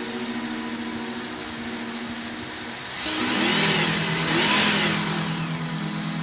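Car engine idling, then blipped up and back down twice about three seconds in. The car is one with a misfire that sets no check-engine light.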